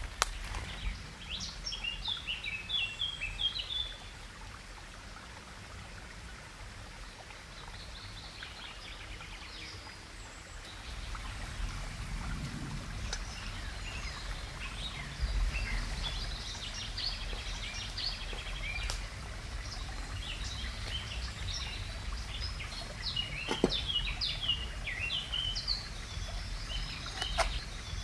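Woodland ambience: small songbirds chirping in quick broken phrases, busiest in the first few seconds and again in the last several seconds, over a steady low background hum. A few sharp snaps and rustles, as of footsteps through undergrowth, come near the end.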